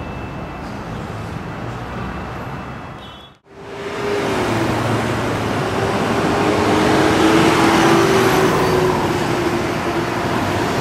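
Street traffic noise: vehicles running past. It drops out abruptly about a third of the way in, then returns louder with a steady engine hum that swells and eases off as a vehicle passes.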